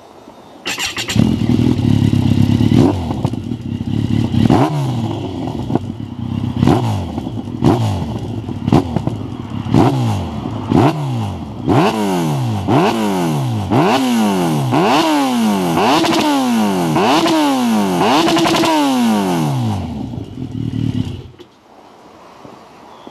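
Kawasaki 1400GTR's inline-four engine through a BEET aftermarket muffler: it starts up about a second in, idles, then is blipped over and over, the revs rising and falling a dozen or more times with the blips coming quicker toward the end, settles back to idle and is switched off near the end.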